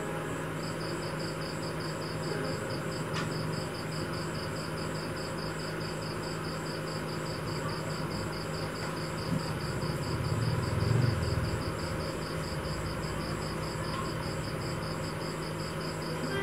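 Insect chirping in a rapid, even, high-pitched pulse, over a steady low hum. A brief louder low rumble comes about ten seconds in.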